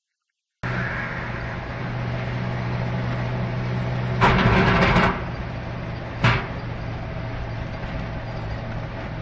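Steady engine and road noise of a moving vehicle, heard from inside, starting abruptly about half a second in. About four seconds in there is a loud rushing burst lasting about a second, and about two seconds later a short sharp bang.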